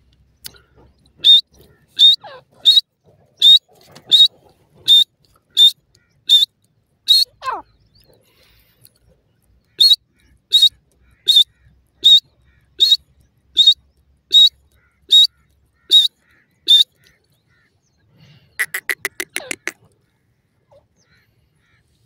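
Francolin (teetar) calling: two runs of sharp, high notes, about three every two seconds, each run lasting about six seconds, then a short fast rattling call near the end.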